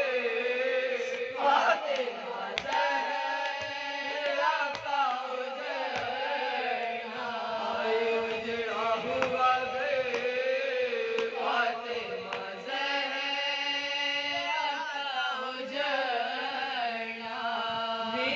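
A group of women chanting a marsiya, a mourning elegy, in unison: a lead voice close to the microphone with three others singing along, in long held, wavering notes without instruments.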